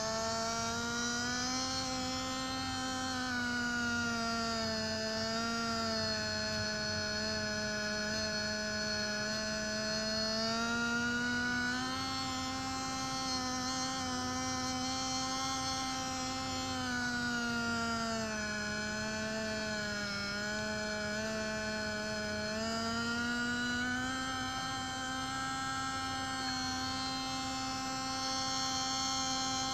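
Whine of the electric motor driving a radio-controlled model Liebherr 922 excavator as it works its boom and bucket. The whine is steady in loudness, but its pitch drops and climbs back every several seconds as the arm moves.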